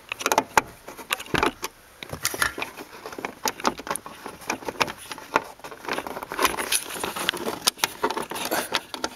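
Irregular small clicks and rattles of hand work on plastic interior trim: a screwdriver turning out a loose screw and the screw being picked out by hand.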